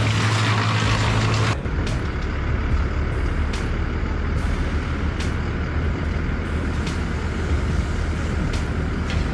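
Engine running steadily and loudly, then an abrupt change about one and a half seconds in to a lower, steady engine hum with occasional sharp clicks.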